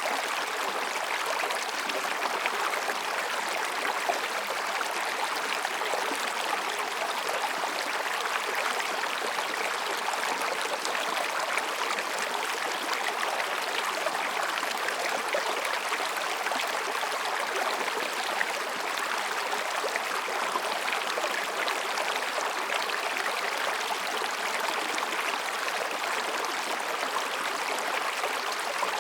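Mountain stream flowing and babbling over and between rocks: a steady, even rush of water with no change.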